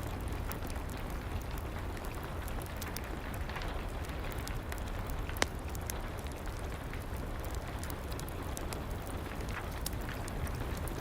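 Steady rain together with a crackling fireplace fire, with scattered sharp crackles and one louder pop a little past halfway.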